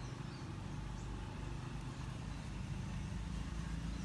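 Steady low background rumble, with a few faint short high chirps near the start.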